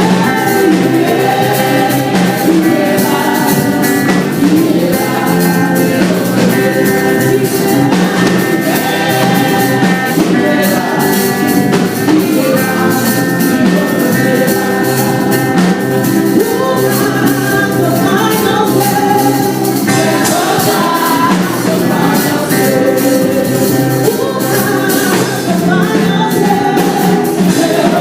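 Gospel-style praise and worship music: a band playing with a group of voices singing together, loud and steady.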